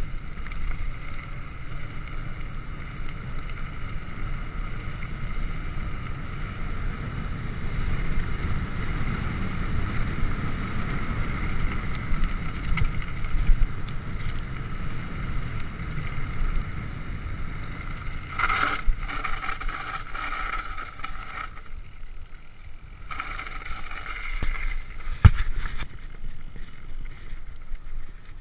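Mountain bike rolling fast down a dirt forest track: wind rushing over the camera microphone and knobby tyres rumbling over the ground, with a steady high whir from the bike that swells in two stretches late on. There is one sharp knock near the end, from a bump.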